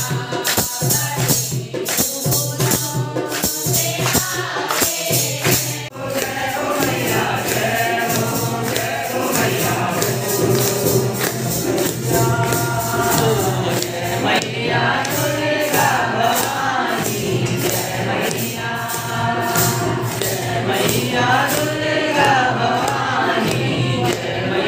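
Group of women singing a Hindu devotional kirtan song to rhythmic hand-clapping. After a short break about six seconds in, a man sings the devotional song while clapping the beat.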